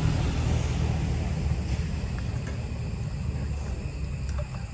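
Low rumble of wind buffeting the microphone, easing off a little, with faint steady high insect trills.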